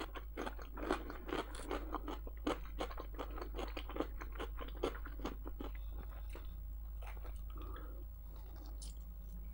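A person chewing food close to the microphone: a dense run of short mouth clicks and smacks that thins out after about six seconds.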